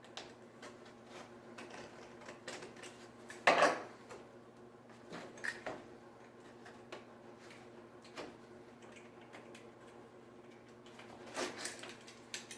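Cardboard packaging and a utility knife being handled: scattered clicks, taps and scrapes, with one louder clatter about three and a half seconds in, over a faint steady hum.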